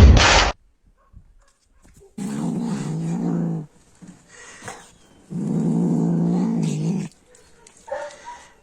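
A loud noise cuts off just after the start. Then an animal growls twice, each growl steady and about a second and a half long, with a pause between them.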